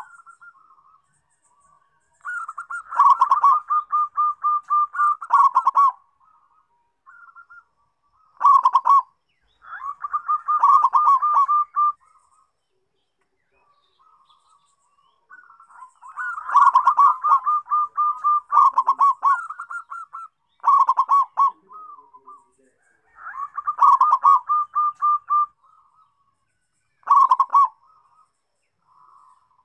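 Zebra dove (perkutut) singing: phrases of rapid, staccato cooing notes, repeated one after another with short pauses between.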